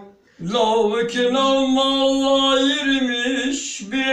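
A man singing unaccompanied in long held notes, after a short breath at the start and with a brief break near the end before the next phrase.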